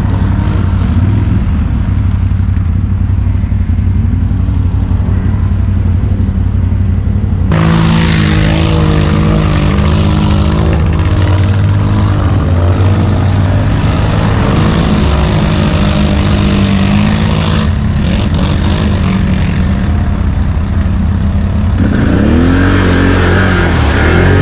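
Quad (ATV) engines running under load through mud and water, with a steady engine note. Near the end the engine is revved up and down.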